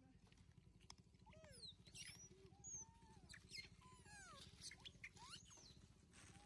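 Faint squeaks and chirps from long-tailed macaques: a string of short calls that glide up and down in pitch, some high and some lower and arching.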